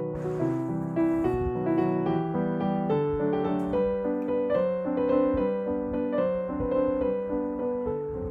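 Background piano music: a melody of separate held notes over lower chords.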